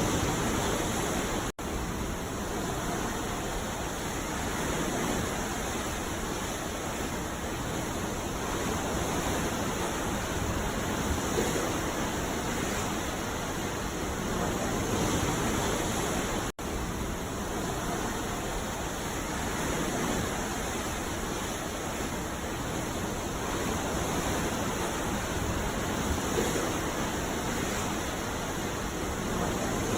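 Ocean surf rushing steadily on a beach, with gentle swells in level. The sound cuts out for an instant twice, about a second and a half in and again about sixteen seconds in.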